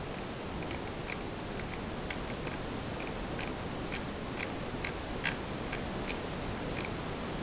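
Irregular light clicks from a computer mouse as a web page is scrolled, the loudest about five seconds in, over a steady background hiss.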